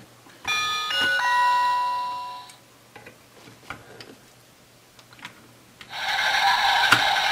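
Electronic sound effects from a battery-powered toy railway crossing platform's speaker: a multi-note chime about half a second in that rings out over about two seconds, a few small clicks as the crossing parts are handled, then a steady electronic sound of several held tones starting about six seconds in, as the tower button is pressed.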